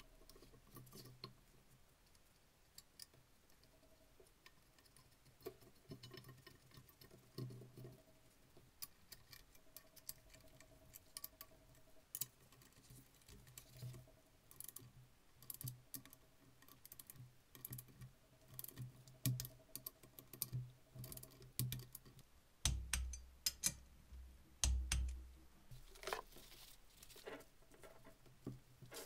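Light scattered metal clicks and ticks of a hand ratchet wrench and small parts being handled while an ABS sensor bracket is bolted onto an aluminium steering knuckle, with a few louder knocks and thumps near the end.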